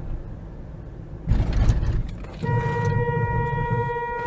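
A car horn held for about two seconds, starting about halfway through, over low road and engine rumble. Just before it, about a second in, there is a short loud noisy burst.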